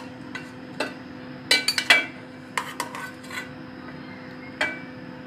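A metal spoon clinking against a steel pot, a series of sharp clinks with a quick flurry about a second and a half in, as gulab jamun are scooped out of their sugar syrup.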